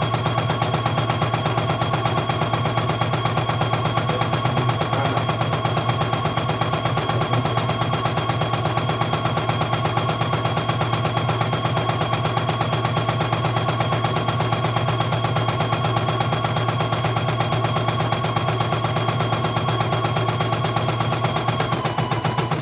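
CNY E900 portable computerized embroidery machine stitching a design: a fast, steady rattle of needle strokes over the hum of its motor. Its pitch steps slightly lower near the end.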